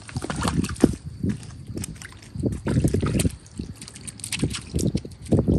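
Beagle wading through a shallow tide pool, its paws splashing and sloshing the water in irregular steps.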